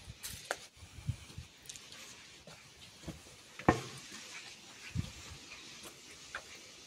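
Irregular footsteps and small knocks over a steady faint hiss, with one sharper knock about halfway through.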